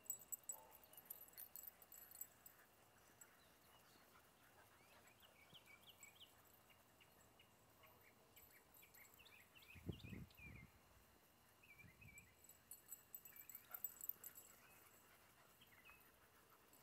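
Faint, scattered high squeaks and yips of English Mastiff puppies at play, with a brief low rumble about ten seconds in.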